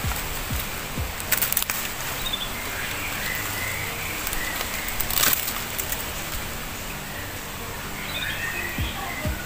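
Outdoor ambience with faint chirping calls, likely birds, and a few sharp clicks. Low falling thumps of a music beat sound at the start and again near the end.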